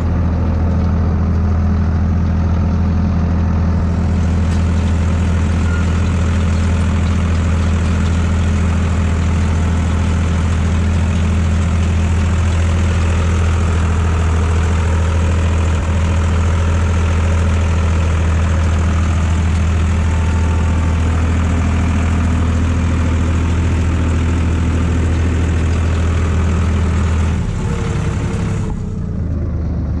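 IHC 633 tractor's diesel engine running steadily under load while it pulls a spring-tine harrow, heard close up from the tractor. Near the end the engine note drops and changes.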